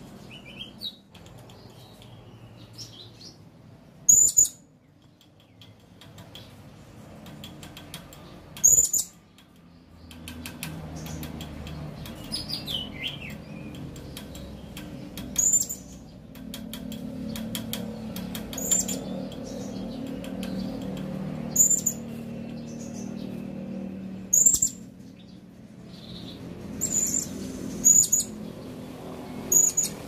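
Blue-crowned hanging parrot (serindit) calling: short, sharp, very high-pitched calls repeated about every two to three seconds, with a few softer, lower chirps in between. A low steady background rumble runs under them.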